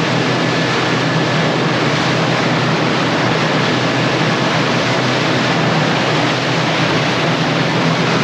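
Powerboat running at speed on open water: a steady engine drone under a constant rush of wind buffeting the microphone and water spray.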